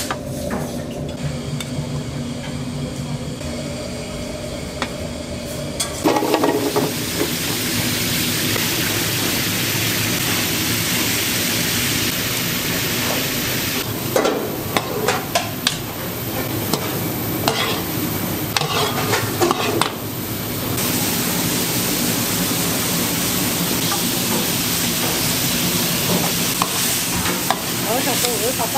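Food sizzling as it fries in a hot pan, setting in about six seconds in after a steady hum. Sharp clicks and scrapes of a utensil stirring come in the middle.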